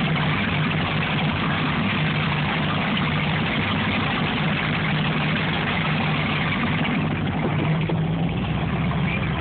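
Cigarette offshore powerboat's engines running at low speed, a steady low hum, with water churning in the wake behind the stern.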